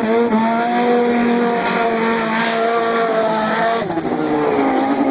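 Snowmobile engine climbing to high revs and holding them steady, then dropping sharply in pitch about four seconds in and running on at lower revs.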